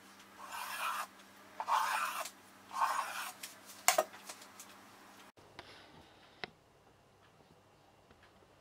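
Kitchen knife drawn through a layered sheet of dough against a wooden board in three or four short scraping strokes, then a sharp clack about four seconds in.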